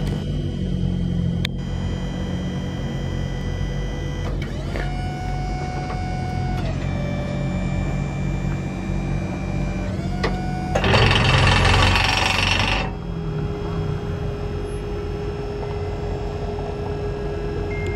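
Stellar 3315 hydraulic crane on a diesel service truck being operated, with the truck's diesel engine running under a hydraulic whine. The whine's pitch steps up and down several times as the boom controls are worked. A loud hiss lasts about two seconds a little past halfway.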